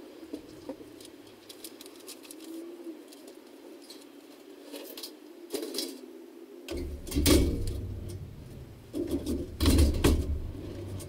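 Furniture being loaded into an SUV's cargo area through the open rear hatch. Light knocks and clicks come first, then two louder thumps in the second half as a portable file cabinet is set down in the back.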